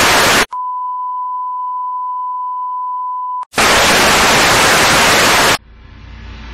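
Loud TV-static hiss broken by a steady test-tone beep lasting about three seconds. The hiss then returns and cuts off abruptly, and music starts to fade in near the end.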